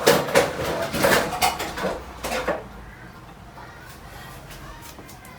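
A cooking utensil clinking and scraping against a cooking pot several times, stopping after about two and a half seconds.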